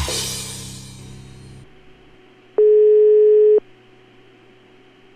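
A music jingle ends on a cymbal crash that fades out over the first second or two. Then a single telephone ringback tone sounds for about a second over faint line hiss: the caller's line ringing while the called phone rings.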